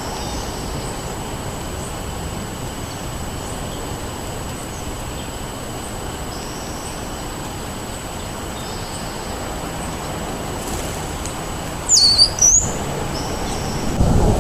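Wild songbirds calling over a steady rumble of wind noise, with faint short calls every few seconds. One loud call about twelve seconds in has two quick notes sweeping down in pitch.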